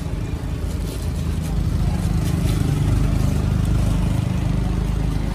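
Small engine, likely the parked motorbike's, running steadily close by as a loud low rumble, with indistinct voices in the background.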